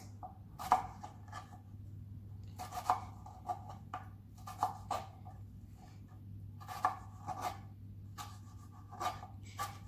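Kitchen knife slicing bell peppers on a cutting board: irregular cuts and taps of the blade on the board, over a faint steady low hum.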